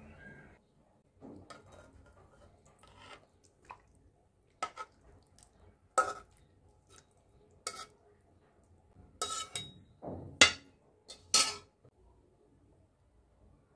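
A spoon clinking and knocking against a metal pot and a ceramic serving bowl as fish curry is dished up. The clinks come irregularly, each short and ringing briefly, the loudest near the end.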